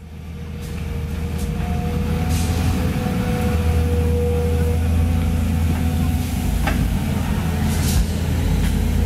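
Volvo EC210B crawler excavator's diesel engine running steadily under load, with a held hydraulic whine in the first half as the bucket digs and lifts rubble. A few sharp knocks and scrapes of broken masonry against the bucket come through on top.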